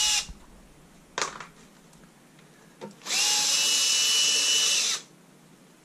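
Cordless drill-driver backing screws out of a moving-head light's arm cover. Its motor whine stops just after the start, a light click comes about a second in, and about three seconds in it runs again steadily for about two seconds on the next screw.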